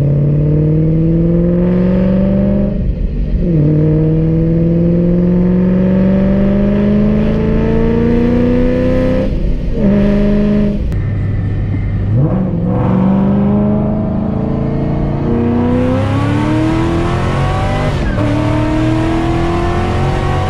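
Ford Shelby GT500's 5.4-litre V8 under hard acceleration at wide-open throttle, heard from inside the cabin. The engine note climbs steadily through the revs, and its pitch drops sharply at each of several gear changes.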